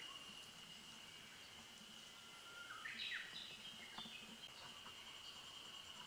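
Faint insect buzz, one steady high-pitched tone, with a short burst of bird call notes about three seconds in.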